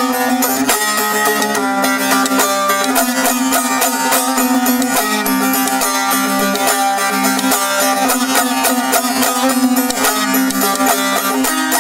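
Long-necked lute played solo: quick, rapid plucked notes over a steady ringing drone string.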